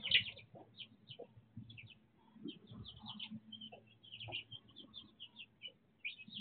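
A brood of young chicks peeping continuously, many short high peeps overlapping, loudest in a cluster right at the start, over faint low rustling.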